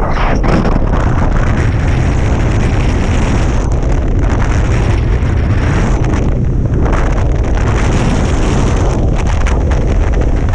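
Airflow of paraglider flight buffeting the camera's microphone: a loud, steady wind rush, strongest in the low rumble, with small dips now and then.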